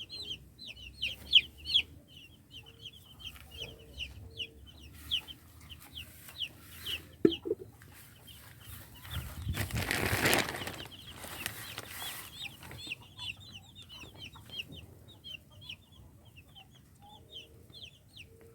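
A coop full of young chicks peeping: many short, high, falling chirps overlapping without a break. About ten seconds in, a rustling swell rises over them for a couple of seconds.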